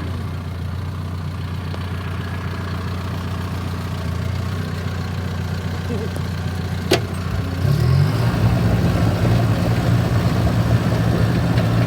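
John Deere 650K crawler dozer's diesel engine running at a steady lower speed, then revving up about eight seconds in and holding at higher speed. A single sharp click sounds about seven seconds in.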